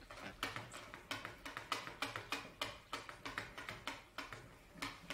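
Faint, regular light tapping of a stirring utensil against a plastic measuring jug, about three taps a second, as a glue-and-pigment paste is stirred in one direction while linseed oil is worked in drop by drop.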